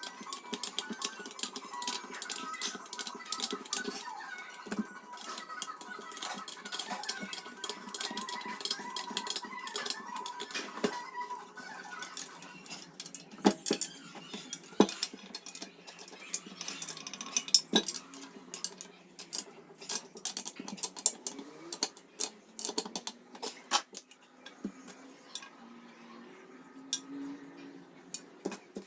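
Metal clinking and tapping: a long run of sharp clicks and knocks of metal tools and parts being handled, thicker in the first half and sparser later.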